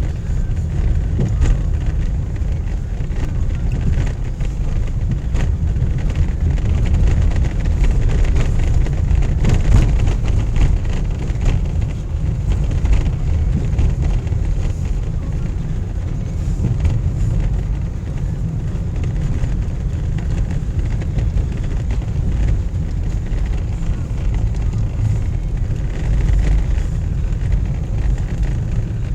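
A car driving, with a steady low rumble of engine and road noise that rises and falls only slightly.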